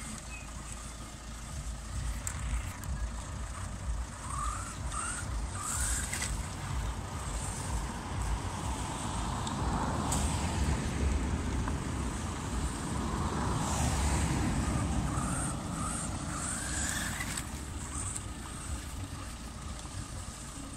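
WLtoys 12428 electric RC truck driving over grass and dirt, its motor and gearbox whining with short revs that rise in pitch: a cluster about five seconds in and another near the end. In between, the drivetrain and tyre noise swells louder twice.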